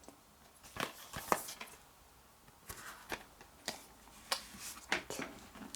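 A plastic DVD case being handled and opened: a string of irregular light clicks and short rustles.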